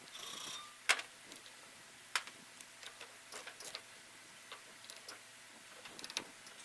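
Hand tools working on a hay baler's metal parts: a short buzzy tool burst at the start, then scattered sharp clicks and knocks of metal on metal, the loudest about a second in.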